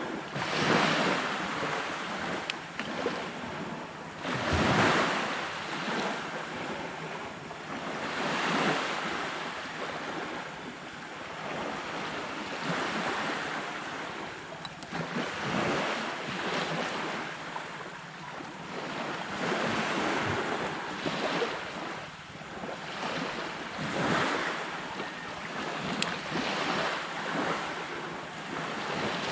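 Sea waves breaking and washing onto a beach, surging every few seconds, with wind on the microphone.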